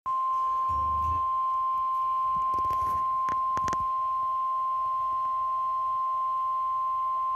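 NOAA Weather Radio warning alarm tone, a single steady high beep at about 1050 Hz, from the speaker of a Midland S.A.M.E. weather alert radio; the tone signals that a warning, here a severe thunderstorm warning, is about to be read. A few faint clicks sound under it about three seconds in.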